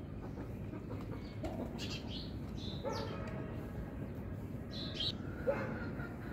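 Several short chirping animal calls, spaced out over a few seconds, over a steady background noise.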